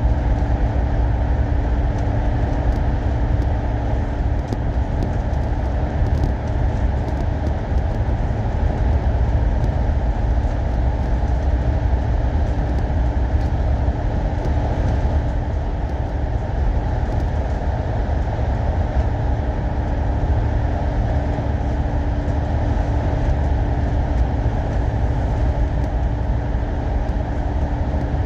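A Euro 6 MAN bus running steadily, heard from on board: a continuous low engine and road rumble with a steady droning hum over it.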